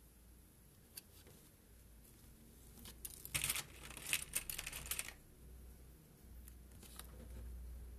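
Small plastic sewing clips being snapped onto the layered fabric edge, with fabric rustling: a single click about a second in, a quick run of clicks and rustling from about three to five seconds in, and a few more clicks near the end.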